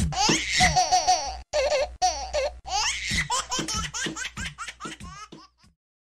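Laughter: a run of quick giggling bursts that grow fainter and stop about five and a half seconds in.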